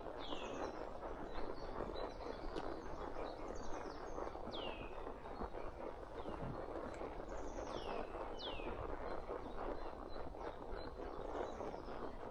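Forest birds calling over and over, each call a quick downward-sliding whistle, about once a second, over a steady rustling noise.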